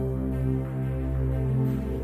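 Background music: slow electronic, ambient-style music with sustained synth tones.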